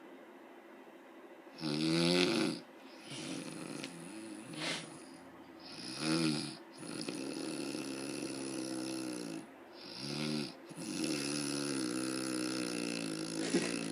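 A woman snoring loudly in her sleep: a run of about six snores of uneven length after a quiet first second and a half, the loudest about two seconds in and the later ones long and drawn out.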